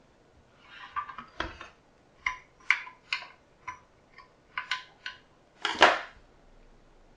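Irregular light metallic clicks and knocks from an all-metal hand-cranked pasta machine being handled, about a dozen spread over a few seconds, with one louder, fuller knock near the end.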